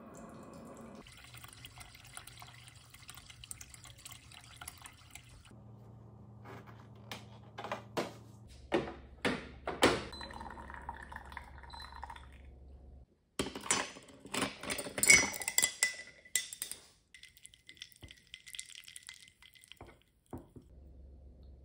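Water running from an instant-heat water dispenser into a ceramic mug for a few seconds. Then a run of knocks and clatters, and a cluster of ice cubes clinking against the inside of the mug.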